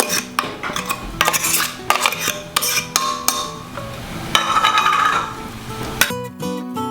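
Metal utensil clinking and scraping against dishes as drained canned chicken is spooned into an egg and oil mixture, a run of irregular knocks and clicks. Acoustic guitar music comes in near the end.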